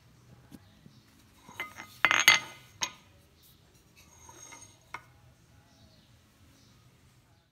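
Vintage Stanley brass ball-peen hammer clinking against a steel anvil face as it is handled and turned over: a quick cluster of clinks about two seconds in, the loudest, with lighter taps around it and one more sharp clink near five seconds.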